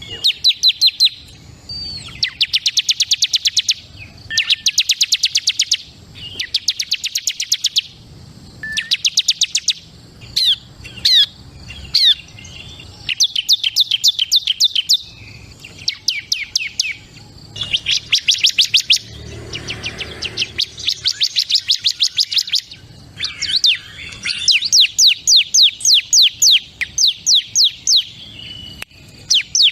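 Bar-winged prinia (ciblek) singing in repeated fast trills of high, sharply rising notes, about a dozen notes a second. Each trill lasts one to two seconds, with short pauses between.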